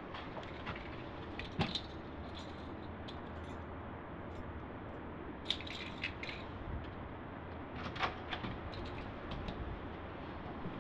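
A bunch of keys jingling and clicking in a few short clusters as they are handled and worked into a door lock, over a faint steady room hum.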